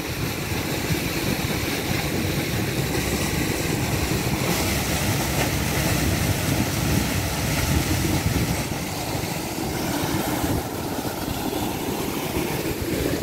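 Steady rumble of an electric water pumping station running hard, with water gushing out of its outlet in a strong torrent.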